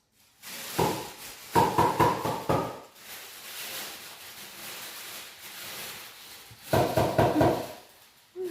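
Dry cat food rattling hard in its container in three quick bursts, with a softer steady rustle between them.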